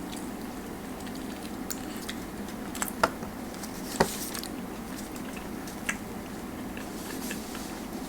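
Quiet eating sounds: soft chewing with a few sharp clicks, the loudest about three and four seconds in, over a steady low hum.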